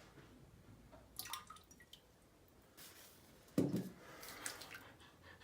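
Fake blood dripping and splashing in a few short spatters, with a louder dull knock about three and a half seconds in.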